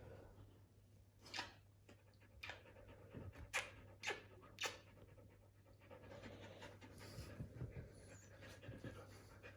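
Siberian husky panting, with several sharp clicks or taps through the first half.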